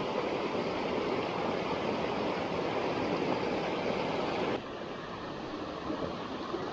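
Mountain stream water rushing steadily, which cuts off abruptly about two-thirds of the way through to a quieter, duller rush.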